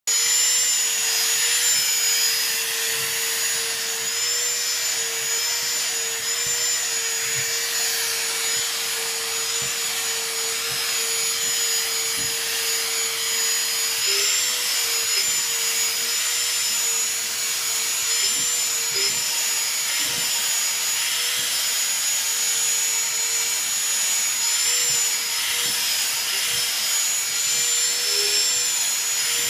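Vacuum cleaner running steadily: a motor whine over a rushing hiss, its pitch wavering slightly now and then.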